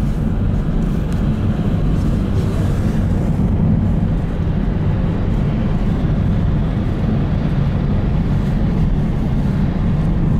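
Car driving at steady speed, heard from inside the cabin: a continuous low rumble of road and engine noise.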